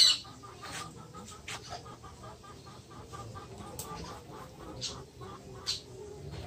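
A bird calling in a quick string of short repeated notes, over crackles and rustles of banana leaves being wilted on a griddle above a wood fire. A sharp crack at the start is the loudest sound.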